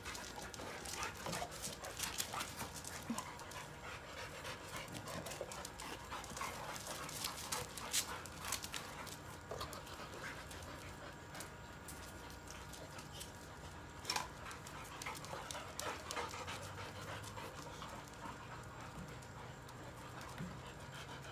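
Boxer dogs panting as they play together with a tug toy, with scattered sharp clicks throughout, loudest about eight and fourteen seconds in.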